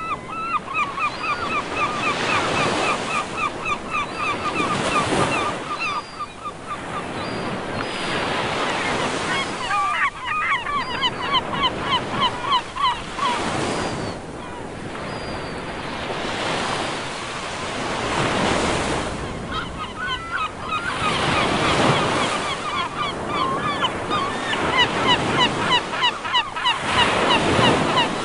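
Sea waves breaking and washing in, in slow swells every few seconds, with gulls calling in bouts of rapid, repeated cries over them.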